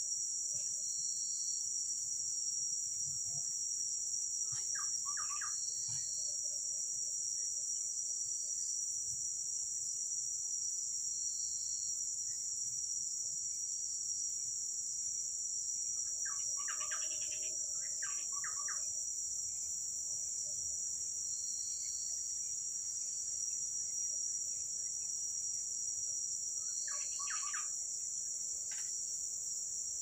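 Forest insects keeping up a steady high-pitched drone, with short higher chirps repeating every second or two. A bird calls three times in quick runs of notes: about five seconds in, around the middle, and near the end.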